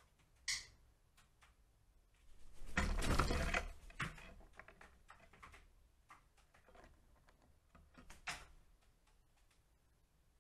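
Eurasian magpies close to the microphone: a loud harsh rattle lasting about a second, a few seconds in, with single sharp notes near the start and again near the end, and scattered light clicks in between.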